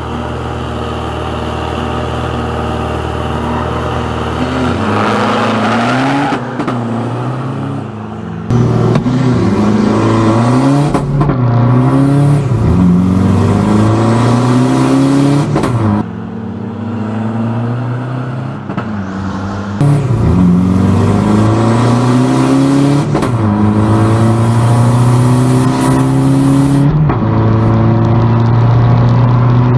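Toyota Hilux diesel pickup engine held at steady revs on the drag-strip start line, then revving up and pulling hard through the gears: a run of rising sweeps in pitch, each falling back at a gear change. From about eight seconds in it is heard from inside the cab and is louder.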